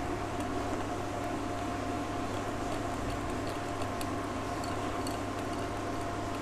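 A steady mechanical hum with a few constant tones, with faint, scattered light clicks of a metal wire whisk against a glass bowl as thick cake batter is beaten by hand.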